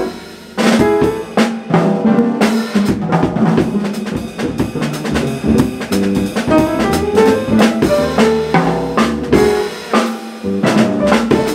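Live jazz piano trio playing: acoustic piano, upright double bass and drum kit, with frequent drum and cymbal strikes over the piano and bass lines. There is a short lull about half a second in before the full band comes back in.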